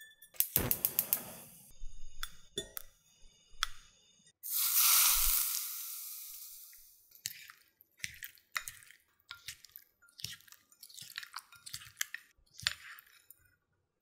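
Kitchen food-preparation sounds: utensils clinking and tapping against dishes. About four seconds in there is a sudden loud hiss that fades away over a few seconds. It is followed by a run of small clicks and taps.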